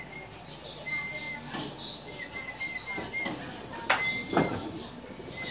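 Someone climbing onto a rooftop pigeon loft, with two sharp knocks about half a second apart a little before the four-second mark, over faint high chirping.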